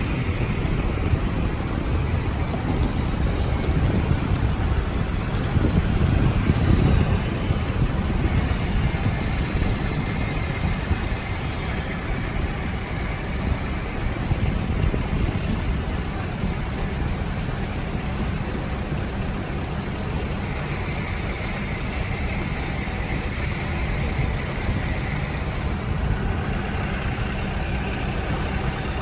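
Steady airport apron noise: a low rumble from aircraft and ground equipment, swelling briefly several seconds in, with a faint high whine in the second half.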